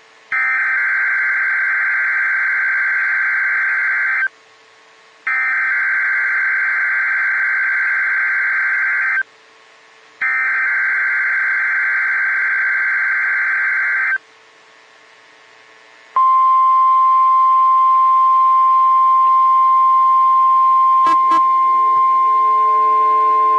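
NOAA Weather Radio Emergency Alert System test. First come three bursts of SAME header data tones, a harsh warbling screech each about four seconds long with a second's pause between. Then, about 16 seconds in, the steady single-pitched weather radio alert tone begins and holds.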